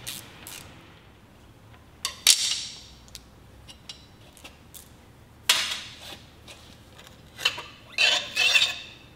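Steel bolts and hand tools clinking and clattering against metal while the water pump housing bolts of an outboard gearbox are taken out: a handful of short clatters with faint ticks between.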